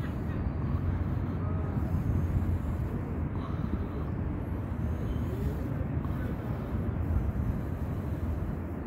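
A tabby cat giving a few faint, short mews over a steady low outdoor rumble.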